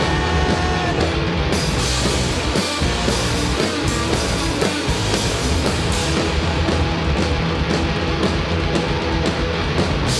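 A rock band playing loud and dense: electric guitars, electric bass and two drum kits together.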